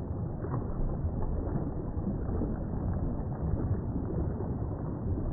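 Flowing water of a shallow stream riffle as a steady, dull, low rumble, with all the higher splash and hiss cut away.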